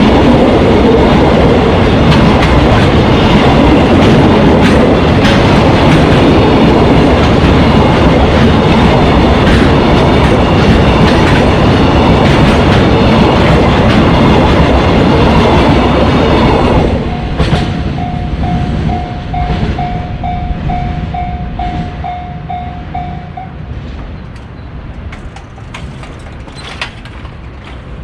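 Freight train wagons running past over the rail joints with a steady clatter, which drops off sharply about two-thirds through as the train clears the crossing. The level-crossing alarm's electronic pulsed tone, about two rings a second, is then heard on its own for several seconds before it stops.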